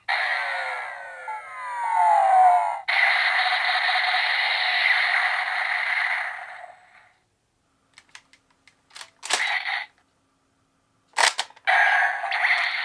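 Electronic sound effects played through a toy gun's small speaker: falling sweeping tones for about three seconds, then a steady hissing blast for about four seconds. After a pause come a few sharp clicks, and another sound effect starts near the end.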